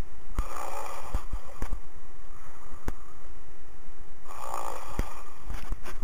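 A sleeping person snoring over a phone line: two long, loud snores about four seconds apart, with scattered sharp clicks throughout.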